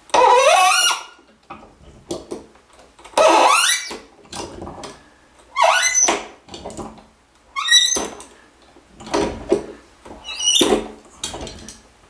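A tight, long-seized Moen Roman tub faucet part squeaking as it is wrenched round in short turns with channel-lock pliers. About six sharp squeaks, each sliding in pitch, come a couple of seconds apart, with light clicks between.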